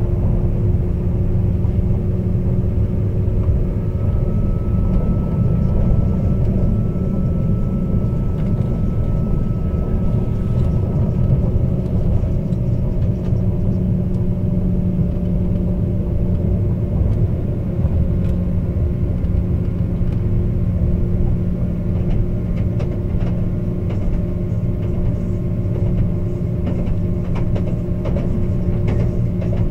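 Cabin sound aboard a moving Class 197 diesel multiple unit: the underfloor MTU six-cylinder diesel engine running steadily under a constant rumble of wheels on rail. A faint high whine comes in for several seconds near the start, and light clicks and rattles come through in the later part.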